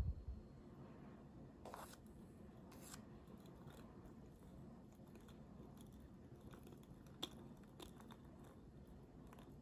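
Faint sounds of a spoon piling whipped dalgona coffee foam onto a glass of milk: a soft low thump at the start, then a few light clicks and scrapes of the spoon against the bowl and glass.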